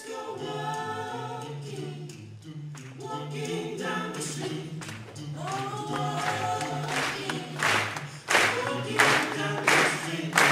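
Male a cappella quartet singing in close harmony over a sustained low bass line. About seven seconds in, sharp rhythmic percussive hits join the singing.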